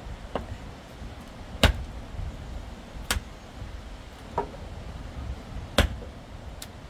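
A series of six sharp knocks at uneven intervals, roughly one to one and a half seconds apart, over a steady low rumble.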